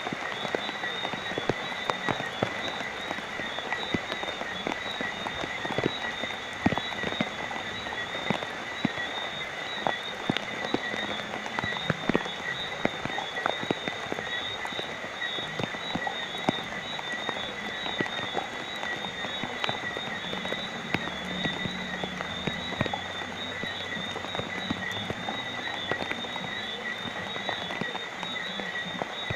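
Steady rain falling, a dense even hiss full of many sharp drop ticks. A steady high-pitched chorus runs underneath.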